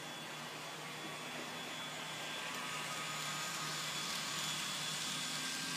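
N-scale model trains running on Kato Unitrack: a steady whirring hiss of small locomotive motors and wheels rolling, with a faint high whine, growing a little louder in the second half as a train comes close.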